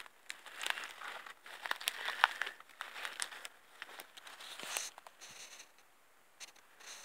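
Footsteps crunching and rustling through dry grass and cut plant debris, an irregular crinkling that dies down after about five seconds.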